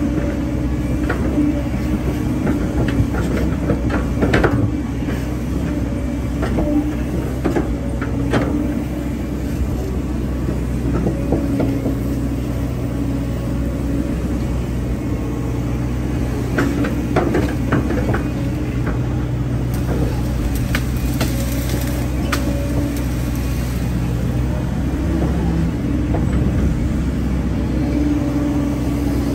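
Hyundai hydraulic excavator's diesel engine running steadily while it works, with scattered clanks and knocks, a few of them louder around four, eight and seventeen seconds in.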